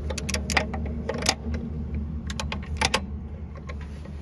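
Ratchet wrench clicking in short, irregular runs of sharp metal clicks as a nut is tightened on a tractor's auxiliary hydraulic pump, over a steady low hum.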